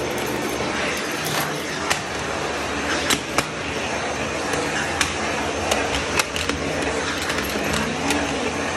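Vacuum cleaner running steadily while its flat floor nozzle on a metal wand is pushed along stair treads. Sharp clicks and knocks come every second or so as the nozzle bumps the step edges and risers.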